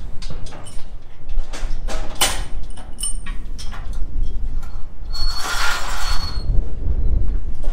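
Steel cattle chute and gates clanking and rattling in a string of sharp knocks. About five seconds in comes a longer metal scrape with a thin squeal, as of a gate sliding, over a steady low rumble of wind on the microphone.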